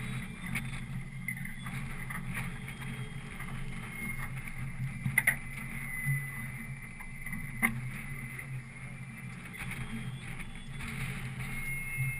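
Boat motor running low and steady. A quick cluster of three sharp knocks comes about five seconds in, and a single knock follows a couple of seconds later.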